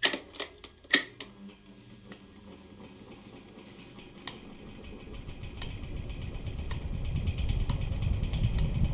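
Electric fan: a few sharp clicks in the first second, then the motor and blades spinning up, a low whir that grows steadily louder through the second half.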